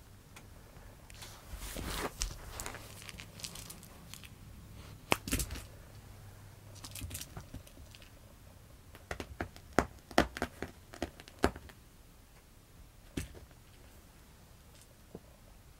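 A cat's paws and claws batting a small pompom ball about on a woven floor mat: scattered sharp taps and scratchy rustles, with a cluster of quick taps about nine to eleven seconds in.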